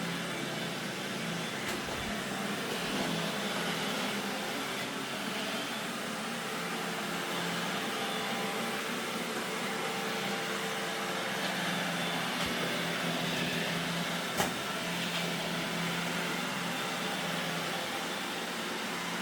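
Roomba robot vacuum running: a steady motor whir with a low hum, and a single sharp click about fourteen seconds in.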